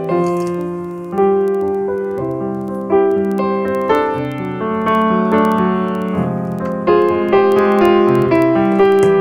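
Background piano music: a gentle melody of held notes over a lower accompaniment, with new notes struck about every second.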